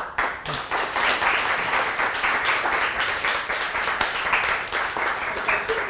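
Audience applauding: a room of people clapping, starting all at once.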